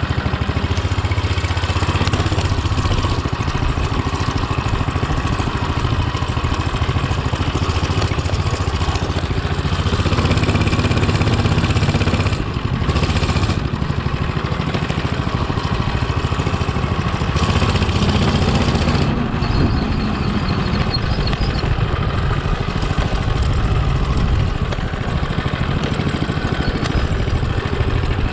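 Hisun 196cc single-cylinder four-stroke engine on a Coleman CT200U-A mini bike running as it is ridden. Its engine speed rises and eases several times, with brief drops in level about 12 and 19 seconds in.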